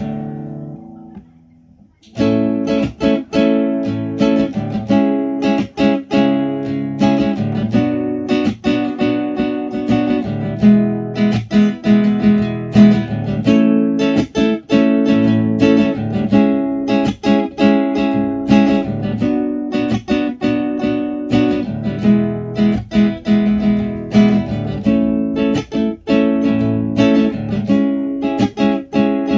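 Classical nylon-string guitar played solo. A chord rings out and fades, then after a brief pause, about two seconds in, chords are strummed in a steady rhythm mixed with plucked notes.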